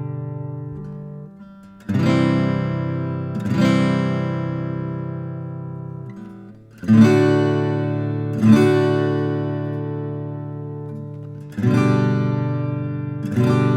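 Gibson LG-2 Banner Reissue all-mahogany acoustic guitar, chords strummed and left to ring. The strums come in pairs about a second and a half apart, each chord dying away slowly before the next.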